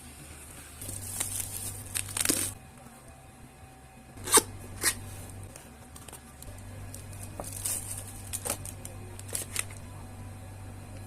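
Keyboard packaging being handled and torn open: a stretch of tearing and crinkling wrap about a second in, then a couple of sharp clicks, and more short rustles and taps later on.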